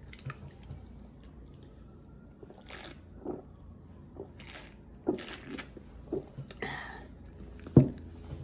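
A person drinking from a drink can: quiet gulps and wet mouth sounds, with a sharp knock near the end.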